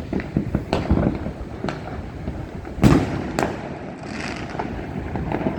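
Fireworks going off in the distance over a city: a string of irregular bangs, the loudest about three seconds in.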